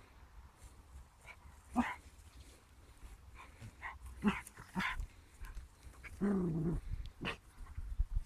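Two dogs, a beagle and a dark shaggy dog, at play: a few short barks, then about six seconds in a longer, drawn-out bark that slides slightly down in pitch.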